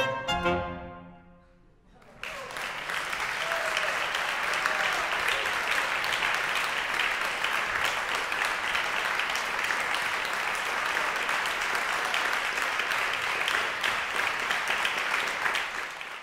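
The last short notes of a saxophone and piano piece ring out and fade away; about two seconds in, an audience breaks into applause that continues steadily.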